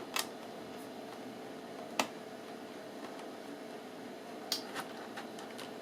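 A few sharp, light clicks of small laptop parts being handled during disassembly, over a low steady background hiss.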